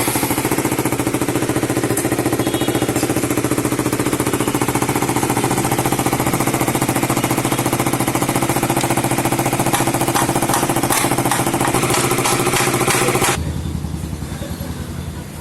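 KTM RC 200's single-cylinder four-stroke engine running loud and steady close to the exhaust, its silencer gasket just replaced to cure an exhaust noise; near the end it drops back to a quieter idle.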